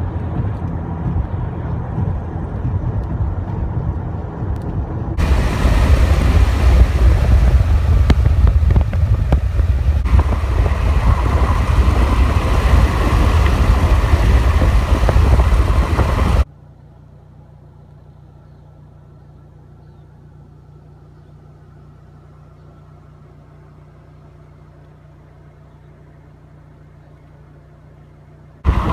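Road and engine noise inside a moving vehicle. About five seconds in, it gives way to loud wind rushing and buffeting over the microphone. Past the halfway point this cuts off abruptly to a faint, steady low hum.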